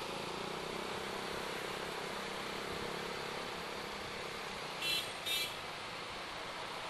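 Steady riding noise of a Honda Vario Techno 110 scooter's small single-cylinder engine and tyres moving through dense motorbike traffic. About five seconds in, two short horn beeps sound, half a second apart.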